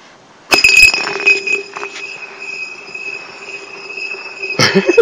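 A bottle kicked across clear ice: a few sharp clinks about half a second in, then a steady high and low ringing as it slides. Another knock near the end is followed by short falling chirps.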